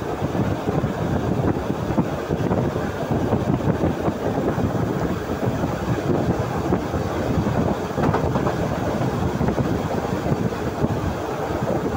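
Passenger train running at speed, heard at an open carriage window: a steady rumble of wheels on the rails mixed with rushing air.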